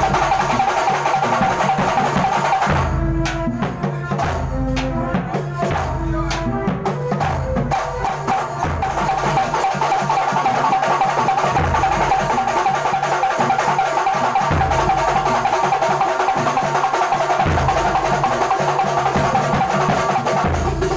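Kuntulan ensemble playing in rehearsal: dense hand-drum and frame-drum rhythm with heavy bass-drum beats every few seconds, over a steady wavering higher tone. The high end thins out for a few seconds about three seconds in, then the full ensemble carries on.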